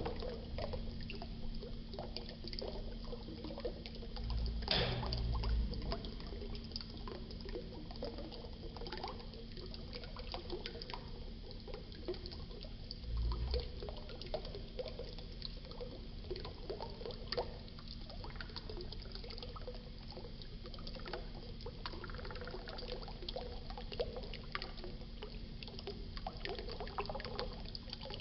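Water of a small waterfall splashing and trickling steadily, with two brief low bumps partway through.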